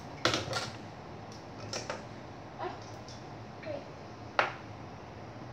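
Large plastic cooking-oil bottle being handled and its screw cap twisted on: a few sharp plastic clicks and knocks, the loudest about a quarter second in and near the end, over a steady low hum.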